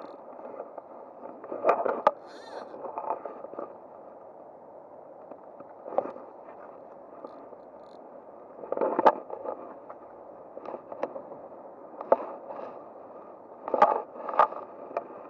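Steady rush of flowing stream water. Short bursts of clicking and scraping come a few times, about 2, 9, 12 and 14 seconds in.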